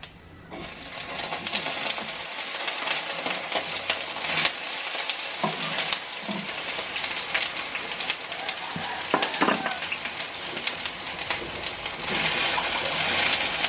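Nopal cactus strips frying in hot oil in a clay pot: a dense sizzle with many small pops that starts as they go in and carries on steadily, growing louder near the end as they are stirred with a wooden spoon.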